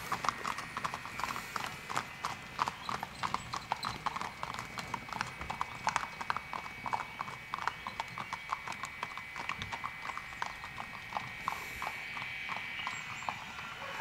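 Hooves of a pair of horses pulling a carriage at a trot, clip-clopping on an asphalt road in a quick, continuous rhythm. A faint steady high whine sounds behind the hoofbeats.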